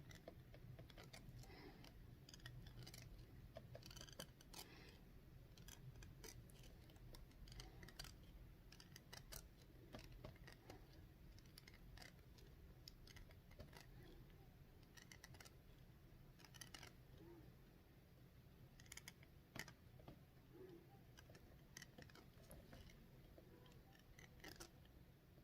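Faint, irregular snipping clicks of a twisted cotton thread being worked open and closed across the upper lip, catching and pulling out hairs.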